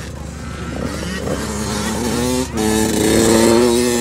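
Small youth motocross dirt bike engine of the 80–110cc class accelerating, its pitch climbing and growing louder. There is a brief break in the note about two and a half seconds in, then it pulls again at a higher, louder pitch, with another short drop at the very end: the rider is shifting gears or blipping the throttle.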